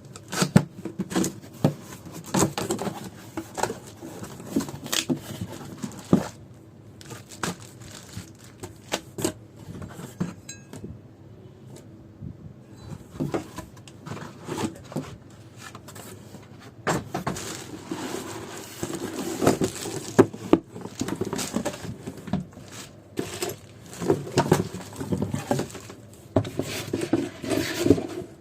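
Unboxing noises as a power planer and its packaging are handled: irregular knocks, clinks and rustling of cardboard and plastic, busier in the second half.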